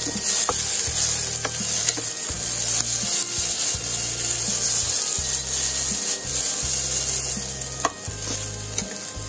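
Vegetables (broccoli, peas, red bell pepper) sizzling in a hot stainless steel pan as a wooden slotted spatula stirs and scrapes them, with a few light clicks of wood against metal.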